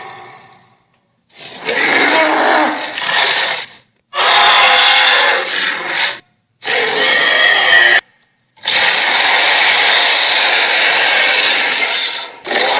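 A series of four harsh, raspy film sound effects, each lasting one to four seconds, separated by short silences, the last one the longest.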